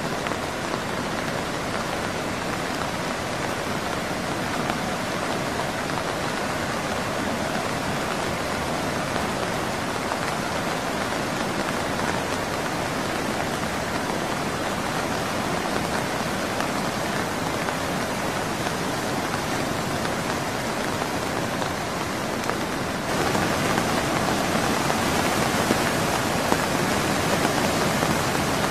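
Steady hiss of heavy rain mixed with the rush of a river in flood. The noise steps up louder and hissier about 23 seconds in.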